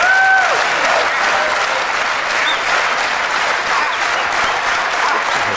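Studio audience applauding steadily, with a brief high pitched call rising above the clapping at the very start.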